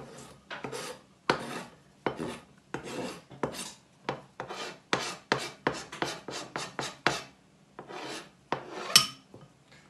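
Kitchen knife blade scraping chopped parsley off a plastic chopping board into a bowl: a long run of short scraping strokes, about two or three a second, the loudest one near the end.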